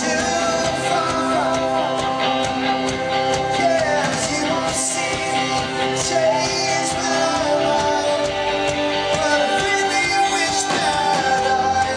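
Rock band playing a song, with a lead voice singing over the instruments and cymbals.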